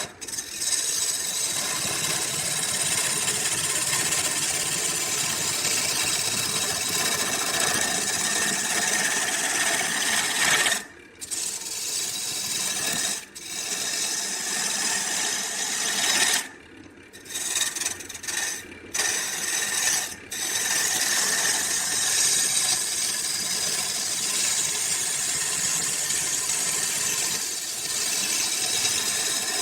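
Woodworking machinery or power tool running with a dense, steady hiss and whir, interrupted by several abrupt drops to quiet about eleven, thirteen and sixteen to twenty seconds in, where the sound cuts off and resumes.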